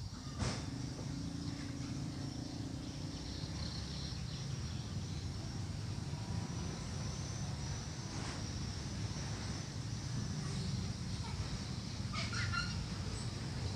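Outdoor ambience: a steady low rumble under a faint high hiss, with a single click about half a second in and a few bird chirps near the end.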